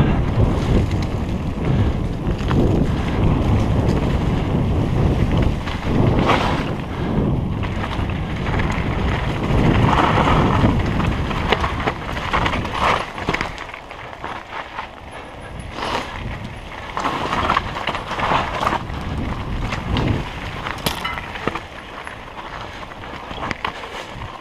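Wind rushing over the camera's microphone as a mountain bike descends a dirt singletrack, with the rumble of the tyres and scattered knocks and rattles of the bike over bumps. The rushing is loudest in the first half and eases a little after the middle.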